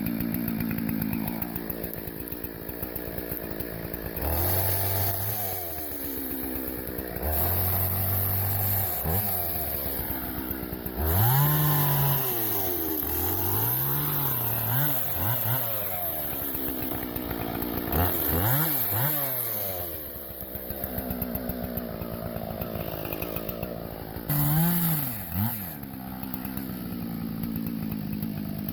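Husqvarna 576 XP two-stroke chainsaw idling, then revved up and let back down again and again, with the engine pitch rising and falling several times in quick succession.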